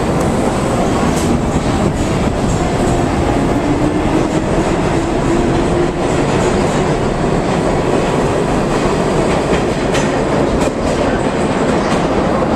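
Vintage New York City subway train running along the track: a steady heavy rumble with a faint whine and a few sharp clicks from the rails.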